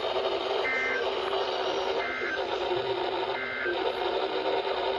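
Emergency Alert System end-of-message data bursts on a NOAA Weather Radio broadcast: three short, shrill two-tone digital warbles about a second and a half apart, signalling the end of the alert. Steady radio static hiss runs beneath them.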